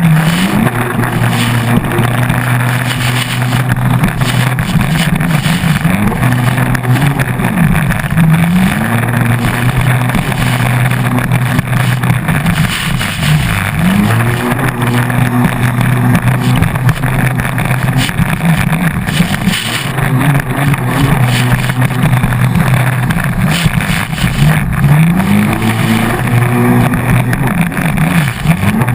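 A 110 hp stand-up jet ski engine running hard at high revs. Several times the revs drop and then climb back up as the throttle is eased and reopened. A constant rush of wind and water runs under it.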